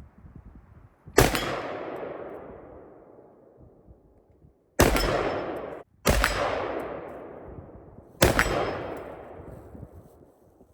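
Four gunshots, each followed by a long fading echo lasting a couple of seconds.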